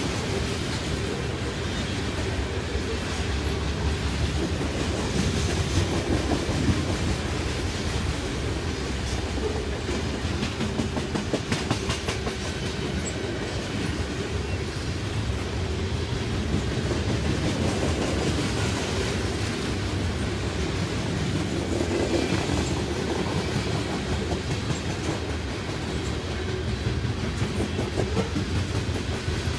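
Freight train of covered hopper cars rolling past at close range: a steady rumble of steel wheels on the rails, with scattered clicks and clacks from the wheels.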